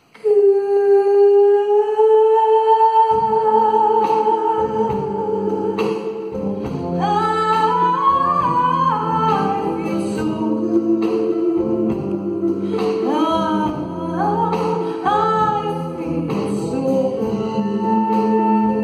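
A woman singing live into a microphone: she holds one long note alone, then about three seconds in an orchestra comes in with sustained low chords under her while she sings runs over them.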